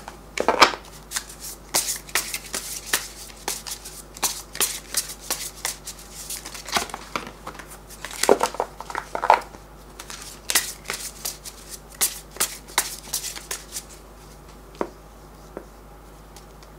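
A deck of tarot cards being shuffled by hand: a quick run of short card slaps and flicks in irregular clusters, thinning out to a few single taps in the last few seconds.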